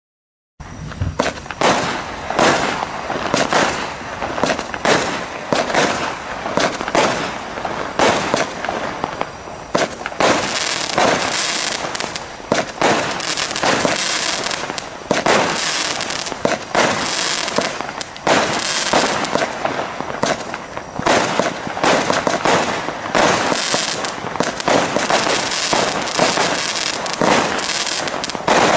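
Astra Martian Attack multi-shot firework cake firing: a rapid, unbroken run of shots launching and bursting with dense crackle, starting about half a second in.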